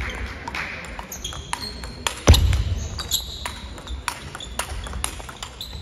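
Large-ball table tennis rally: the 44 mm ball clicking sharply off the bats and table, irregular and fast, with more clicks from nearby tables, echoing in a sports hall. A single loud thump about two seconds in stands out above the clicks.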